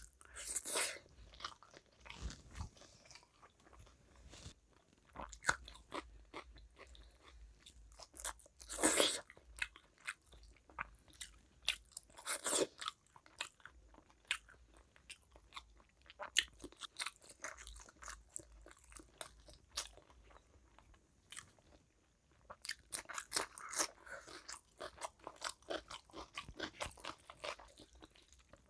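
Close-up chewing and mouth sounds of a person eating rice and curry by hand: a steady run of small wet smacks and crunches, with a few louder ones spread through.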